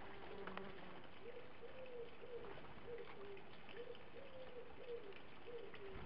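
Wood pigeon cooing: a run of soft, low coos in a repeating phrase, with faint short clicks and chirps from small birds behind.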